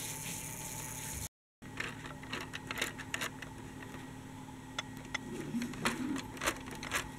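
Small plastic clicks and rattles as a toy articulated bus is moved by hand along a toy road, over a steady low hum. The sound cuts out briefly about a second in.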